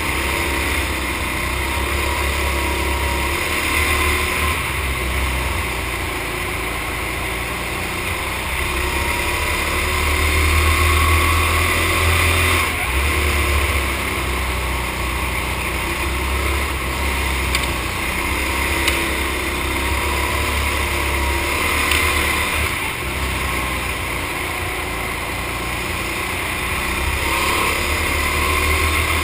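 Racing go-kart's small engine running hard as the kart laps an indoor track. Its pitch slowly rises and falls with the throttle through the corners, over a steady rush of wind and tyre noise.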